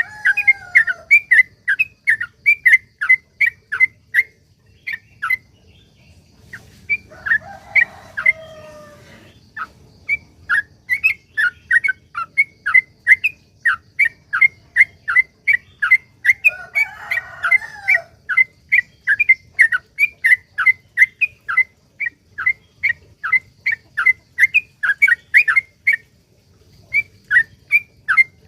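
Trucukan (yellow-vented bulbul) singing a long rapid-fire series of short, sharp notes, about two to three a second, with a few brief pauses. Twice a lower, falling warbled phrase cuts in.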